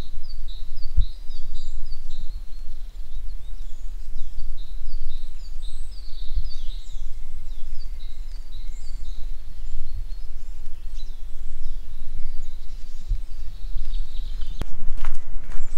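Small songbirds chirping over and over, short high notes that often fall in pitch, over a steady low rumble. A few sharp knocks come near the end.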